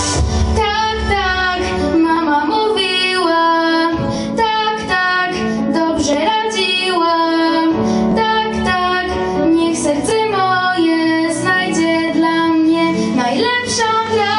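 A boy singing a melody into a handheld microphone, with instrumental accompaniment.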